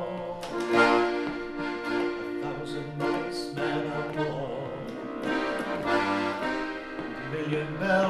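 Melodeon (diatonic button accordion) playing an instrumental passage between sung verses: a reedy melody over rhythmic bass and chord notes, the bellows pushed and drawn.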